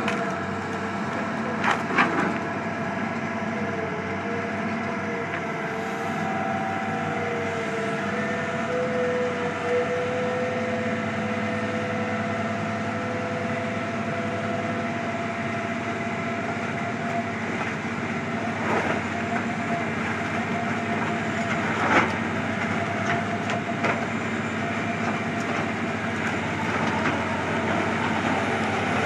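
Wood chipper running steadily with a continuous machine drone, and a few sharp cracks as wood is chipped.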